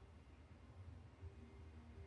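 Near silence: only a faint low rumble with no distinct sounds.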